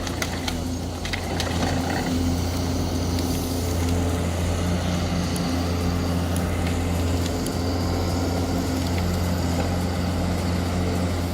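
A large engine running steadily at constant speed, a deep, even hum.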